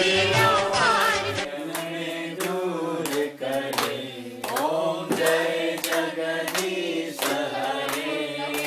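A group of voices singing a Hindu devotional hymn together, with hands clapping in time about twice a second.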